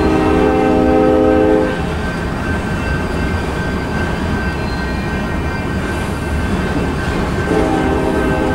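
Freight train boxcars rolling past at a grade crossing, a steady rumble of wheels on rail. A train horn sounds over it at the start, cutting off just under two seconds in, and sounds again near the end.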